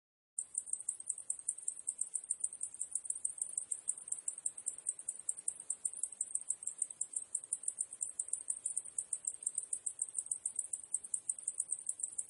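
Cicadas chirring: a high-pitched, rapidly pulsing buzz that starts just after the beginning and holds steady.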